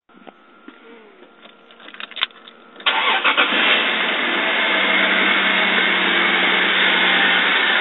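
A few faint clicks, then about three seconds in a Toyota 2JZ-GTE twin-turbo straight-six starts and settles into a steady idle. The owner calls it a rough, overfueling idle, later traced to injectors needing service, a bad O2 sensor and bad spark plugs.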